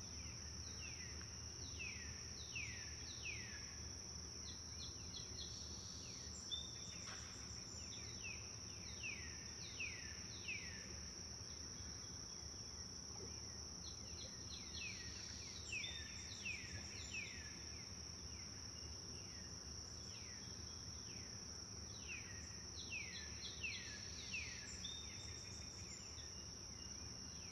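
Forest ambience: a steady, high-pitched insect chorus runs throughout, with a bird calling again and again in short runs of two to four quick down-slurred notes over a low background rumble.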